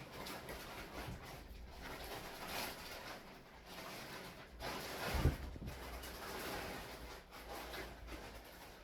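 Household background noise of things being unpacked: uneven rustling and knocking, with one heavier thump about five seconds in.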